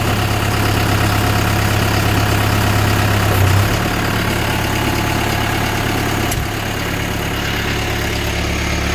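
Branson compact tractor's diesel engine idling steadily while the loader hydraulics open the 4-in-1 bucket's clamshell jaw. There is a brief swell in the engine note about three and a half seconds in, and a click about six and a half seconds in, after which the hum drops slightly.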